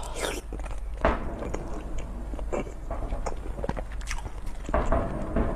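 Close-miked chewing and biting of boiled egg coated in spicy noodle sauce, with many short wet mouth clicks.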